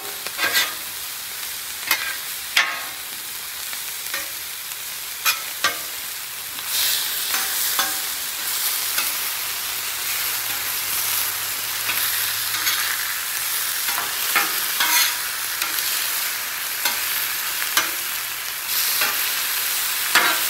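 Chicken breasts and broccolini sizzling on a hot steel flat-top griddle. Two metal spatulas clack and scrape on the griddle surface as the food is tossed and moved. The sizzle grows louder about a third of the way in.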